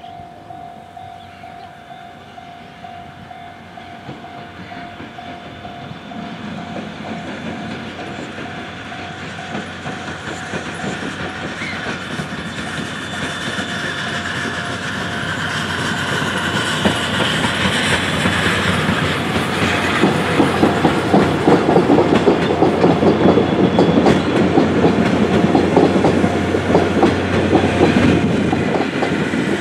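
Steam train of the C58 363 locomotive and four 12-series coaches approaching and passing, growing steadily louder. As the coaches go by, their wheels clatter rapidly over the rail joints.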